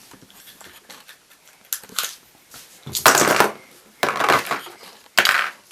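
A Kinder Surprise egg being opened by hand: several short crackling, rustling handling sounds, the loudest about three seconds in.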